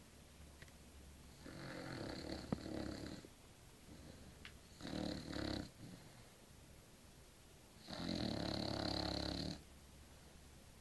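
Snoring: three snores, the first and last nearly two seconds each, the middle one shorter.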